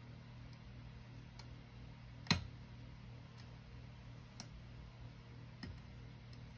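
Lock pick and tension tool working the pins of an MTL Junior lock cylinder: a handful of light clicks roughly a second apart, with one much louder click about two seconds in.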